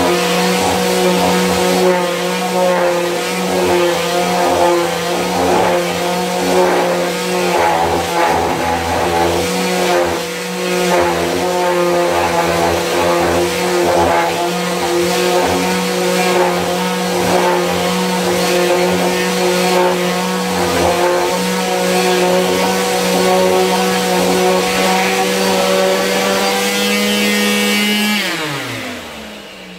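Parkside detail sander running steadily with a constant motor hum as its triangular pad rubs across a pine block. Near the end it is switched off and the motor winds down, its pitch falling away.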